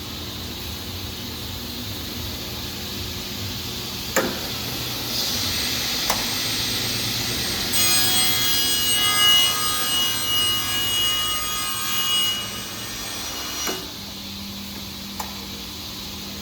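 Vertical band saw running, its blade cutting through a workpiece for several seconds in the middle, with a high ringing tone during the cut. A few sharp clicks come before and at the end of the cut.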